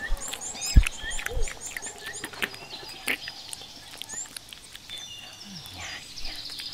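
Small birds chirping quickly and repeatedly, mixed with scattered sharp clicks and a single low thump just under a second in.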